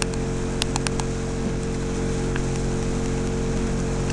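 Outboard motor of a small launch running steadily at low speed, a constant hum over water noise. A quick run of sharp clicks comes in the first second.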